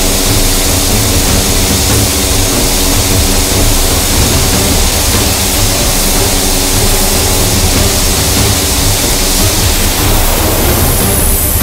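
TAI Hürkuş trainer's Pratt & Whitney PT6A turboprop engine running on the ground with the propeller turning: a loud, steady drone with a rushing hiss. A high whine falls in pitch near the end.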